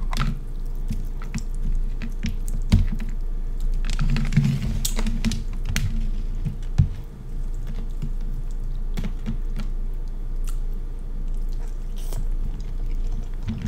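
Close-miked eating of seafood: wet chewing and smacking with many sharp clicks, two of them louder, about three seconds in and near seven seconds.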